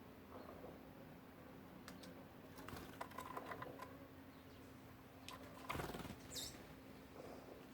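Small birds moving close by, with scattered light clicks and scratches. There is a brief rustling flutter of wings just before six seconds, then one short, high, downward call.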